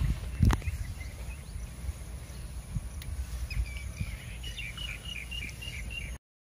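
Outdoor ambience of small birds chirping, with a quick run of repeated chirps near the end, over a low rumbling noise. There is a single sharp knock about half a second in, and the sound cuts off suddenly just before the end.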